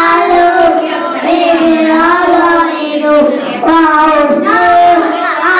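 Young preschool children singing into handheld microphones, a sung melody of long held notes with small slides in pitch.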